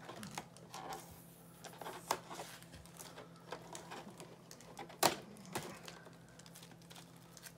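Hands handling a plastic packaging tray, making scattered light taps and clicks, with one sharper click about five seconds in.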